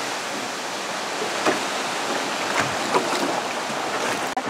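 Sea water sloshing and lapping at the side of a small boat, a steady wash with a few small, sharp splashes about one and a half and three seconds in. The sound cuts out for an instant near the end.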